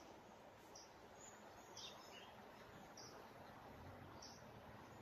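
Faint outdoor background with a short high chirp repeating about once a second, and a couple of other brief high calls near the middle.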